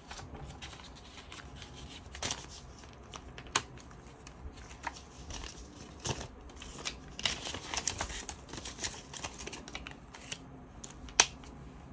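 Paper banknotes being handled: dollar bills rustling and crinkling as they are sorted and slid into a ring binder's envelopes, with scattered sharp clicks and taps on the table.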